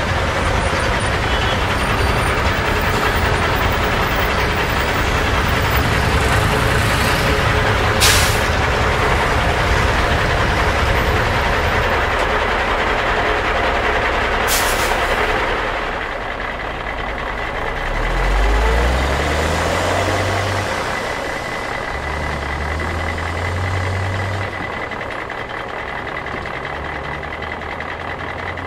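Heavy truck engine running under a loud, dense rushing noise, with two short sharp hisses about eight and fourteen seconds in. From about sixteen seconds it gets quieter and a low engine note rises in steps, two or three times.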